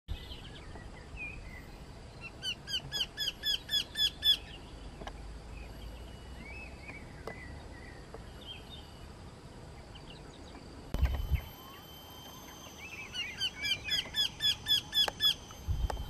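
Eagle calling: two bursts of rapid, repeated high notes, each note falling at its end, about four or five a second, one near the start and one in the second half. Faint calls of other birds lie between them, and a brief low thump comes about eleven seconds in.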